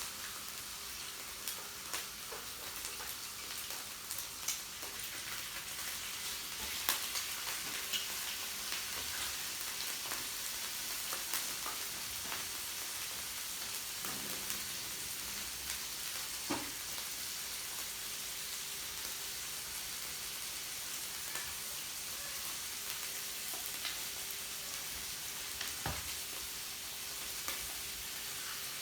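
Meat sizzling on a yakiniku tabletop grill, a steady frying hiss with scattered short clicks and pops.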